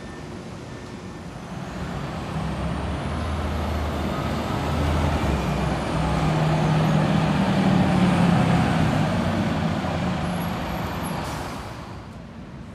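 City bus driving past, its engine noise building over several seconds, loudest about eight seconds in, then fading.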